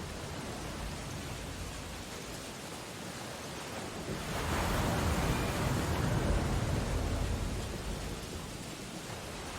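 Steady rain on window glass with a stormy ocean's surf behind it; from about four seconds in a wave's rush swells for a few seconds and then falls away.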